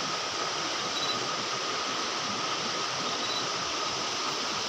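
Steady rushing of flowing water, an even unbroken wash of noise.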